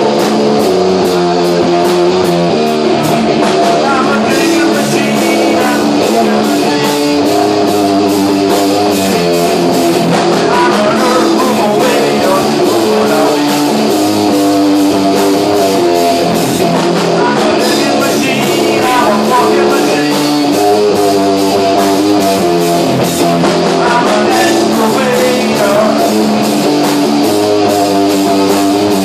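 Rock band playing live at a steady loud level: guitars over a drum kit keeping an even beat.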